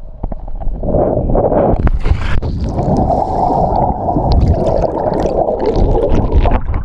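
Loud, muffled sloshing and gurgling of lake water right at a camera held at the water's surface, with scattered knocks against the camera.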